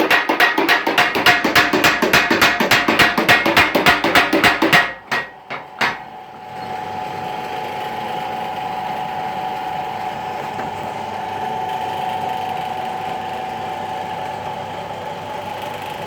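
Homemade power hammer pounding in rapid blows, about six a second, then slowing to three last separate blows about five seconds in before it stops striking. Its drive motor keeps running afterwards with a steady drone.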